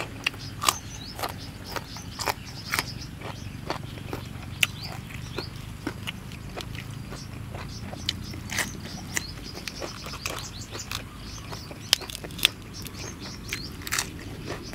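Close-miked chewing: irregular crisp crunches and mouth clicks as raw long bean, lettuce and crispy-skinned roasted rat are bitten and chewed.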